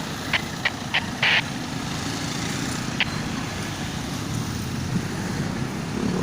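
Steady rumble of road traffic and vehicle engines, with a few sharp clicks in the first second and a half and one more about three seconds in.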